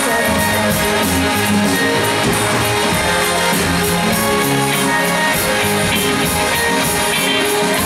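Live rock band playing an instrumental passage: electric and acoustic guitars with drums and a steady cymbal beat, the vocals mostly paused.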